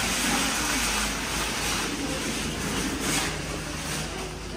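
Metal shopping trolley being pushed along, its wheels and wire basket rattling in a steady rumble that slowly fades.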